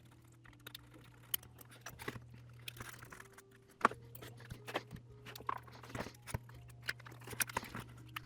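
Small screwdriver working screws out of a plastic remote-controller shell: irregular light clicks, ticks and taps of metal on screw heads and plastic as the controller is handled, over a steady low hum.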